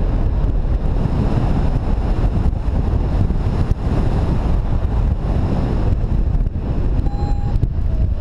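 Steady wind rushing over the microphone from the airflow of a paraglider in flight. A short beep sounds once near the end.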